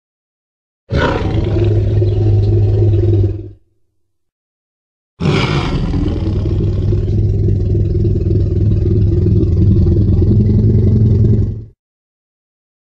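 Two Jurassic Park-style Tyrannosaurus rex roar sound effects: a short one, then a much longer, deep, rumbling roar, each opening bright and then holding low before it fades out.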